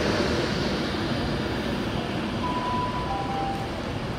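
Class 390 Pendolino electric multiple unit moving along a station platform: a steady rumble of wheels and running gear. A brief two-note tone, high then lower, sounds about halfway through.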